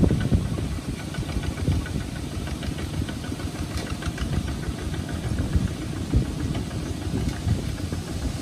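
Two-wheel mini tractor's single-cylinder diesel engine chugging as it drives through deep mud. The chug is loudest at the start as the tractor passes close, then runs on steadily and lower.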